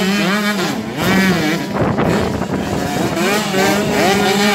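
Several 125cc two-stroke motocross bikes revving through a dirt corner, their engine notes overlapping and rising and falling in pitch as the riders roll off, get back on the throttle and shift.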